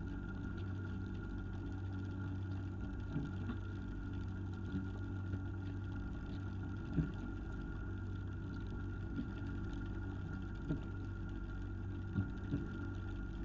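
Fishing boat's engine running steadily, a constant low hum with a faint steady whine above it. About nine short, sharp knocks are scattered through it, the loudest about halfway through.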